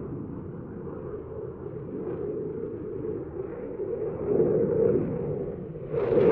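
Eurofighter Typhoon's twin Eurojet EJ200 turbofans heard as a low jet rumble while the aircraft turns in, growing louder. About six seconds in the sound suddenly brightens into a fuller, harsher jet noise as the jet comes closer.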